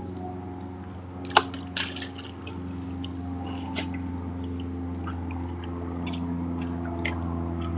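Red deer stag's hooves squelching and splashing in a muddy wallow, with one sharp splash about a second and a half in and smaller wet squelches after it.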